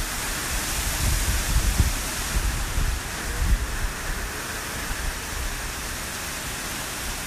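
Hurricane Irma's wind and rain rushing steadily, with gusts buffeting the microphone in the first three seconds or so.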